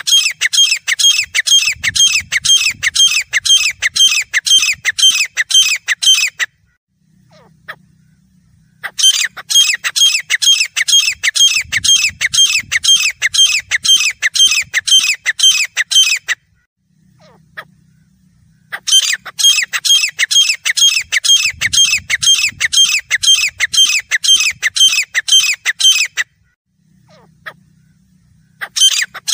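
Grey francolin calling: a loud, rapid string of sharp, high-pitched repeated notes. It comes in bouts about seven seconds long, with pauses of two or three seconds between them.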